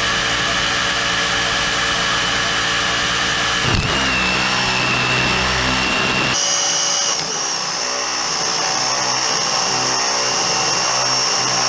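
Brushless electric motor of a 1/8-scale RC buggy (4274 2200 kV on a Hobbywing Max8) running flat out with a steady high whine while the wheels spin its road tyres in a burnout. The pitch dips and recovers briefly about four seconds in.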